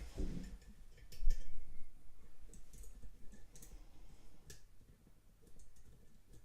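Small, sharp metallic clicks, spaced irregularly about a second apart, from a lock-pick wire and tension tool working inside a non-pipe padlock as it is being picked. A brief dull handling sound comes right at the start.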